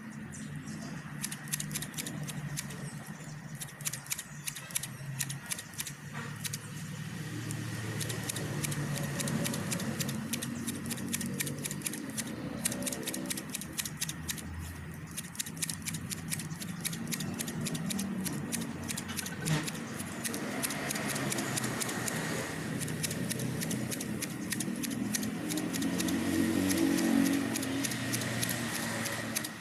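Scissors cutting carabao grass close to the ground: a steady run of small, crisp snips.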